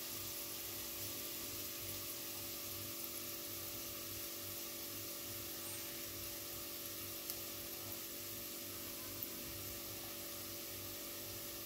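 Chopped onions, curry leaves and whole spices sizzling in hot oil in a steel pot, a steady hiss with an occasional small pop.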